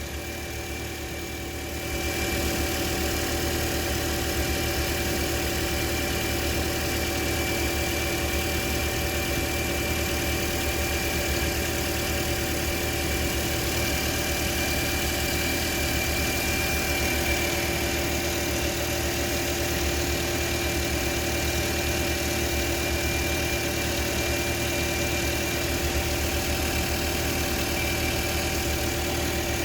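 A steady whistle, with a high tone over lower tones and a low mechanical hum, getting louder about two seconds in; its source is unidentified.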